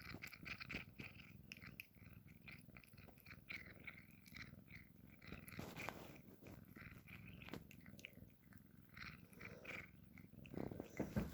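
Cat purring steadily while it chews and nibbles on fingers, with scattered small clicks from the chewing.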